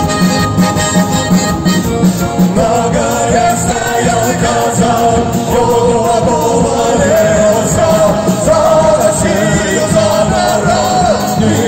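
Live band playing a Cossack folk song over stage speakers: accordion, electric guitar and drums. Singing voices join in about two and a half seconds in.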